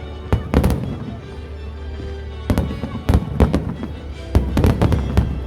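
Fireworks exploding overhead in clusters of sharp bangs: a pair about half a second in, a rapid run around the middle, and another burst near the end, over music.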